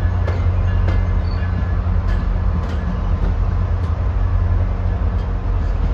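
Diesel locomotive engine idling: a steady, loud low drone.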